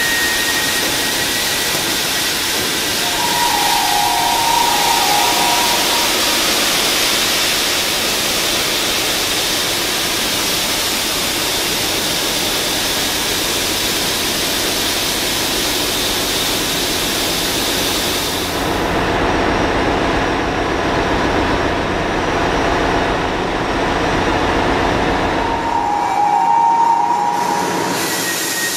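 Loud, steady engine-room noise from a ship's main diesel engine and the machinery around it, a dense hissing noise with a high whining tone that comes and goes. About two-thirds of the way through, the sound turns deeper and loses much of its hiss, and the whining tone comes back near the end.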